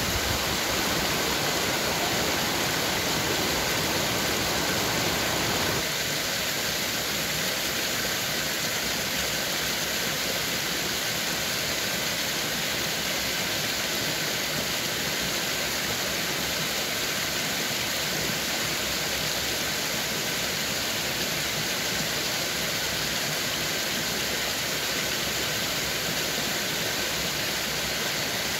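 Small forest waterfall splashing down over rocks into a stream: a steady rush of water, slightly softer from about six seconds in.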